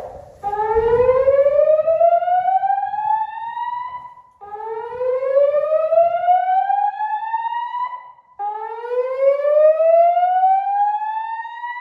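Fire alarm voice-evacuation speakers sounding a slow-whoop alert tone: three rising sweeps, each climbing for about three and a half seconds, holding briefly at the top, then breaking off and starting again low. It is the building evacuation signal.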